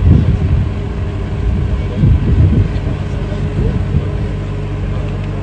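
A loud, steady low rumble with a steady hum running through it.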